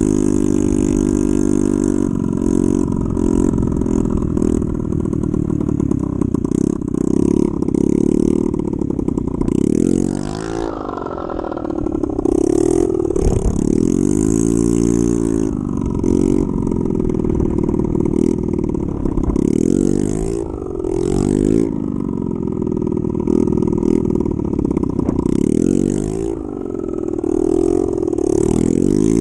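2007 Honda Ruckus scooter's 49cc four-stroke single-cylinder engine, its exhaust broken, revving up and dropping back again and again as the throttle is opened and shut.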